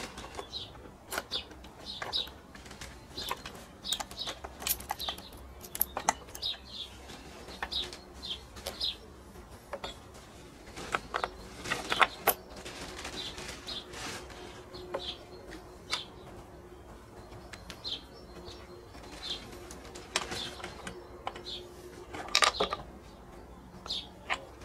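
Metallic clicks and knocks as a bar and chain are fitted onto a Husqvarna chainsaw by hand, the loudest about halfway through and near the end. Small birds chirp again and again throughout.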